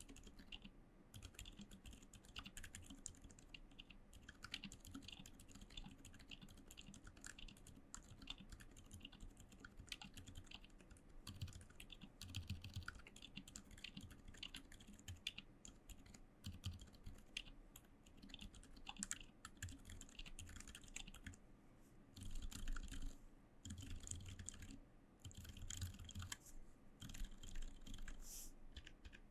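Typing on a Maja mechanical keyboard with Gazzew Boba U4 silent tactile switches, lubed and filmed, with foam-dampened plate and case: a steady, irregular patter of soft, muffled key presses. A few runs near the end are louder with duller thumps.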